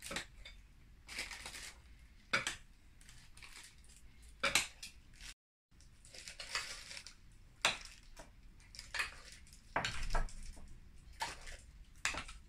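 Scattered clinks and knocks of kitchen utensils and dishes being handled, with soft rustling between them, as a piping bag of cream cheese filling is set up in a glass. There is a brief dead gap about five seconds in.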